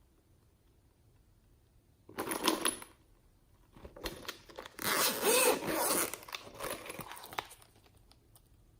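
Crinkling and rustling from hands working with slime and makeup items. One short burst comes about two seconds in, then a longer stretch from about four to seven and a half seconds.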